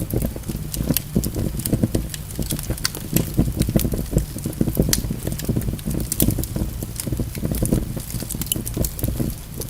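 Wood fire burning in a fireplace, crackling with frequent sharp pops of the logs over a low, flickering rumble of the flames.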